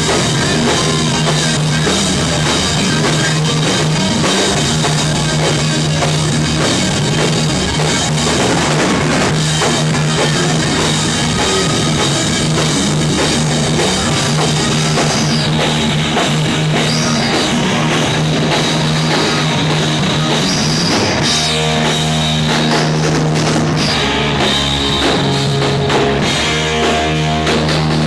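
Rock band playing live: drum kit, electric guitar and bass in an instrumental passage with no singing.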